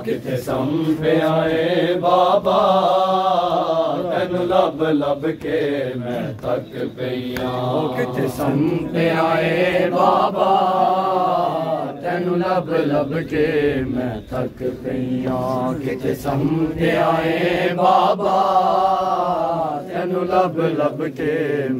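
A man reciting a noha, a Shia mourning lament, in a chanting voice. It comes in long sung phrases whose pitch rises and falls, with short breaks between them.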